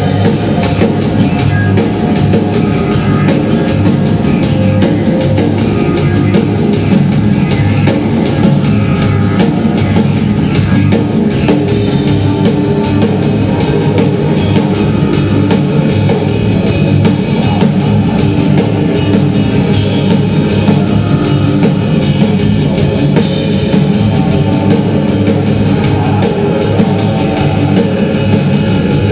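Live rock band playing loud: a drum kit keeps a dense, fast beat under bass guitar and a full band sound.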